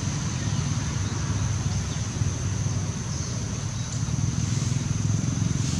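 Steady low rumble like a motor running, with a constant high hiss above it.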